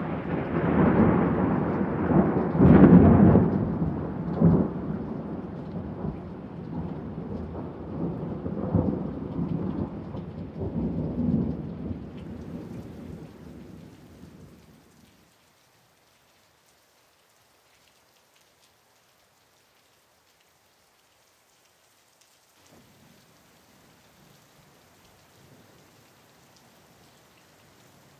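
Thunder rolling in a long low rumble with several swells, loudest about three seconds in, dying away about halfway through. A faint steady hiss starts up near the end.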